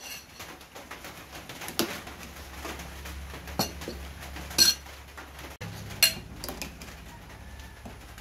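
A metal ladle clinking and scraping against a stainless-steel pot and a ceramic bowl as coconut-milk stew is ladled out, with about four sharp clinks over a low steady hum.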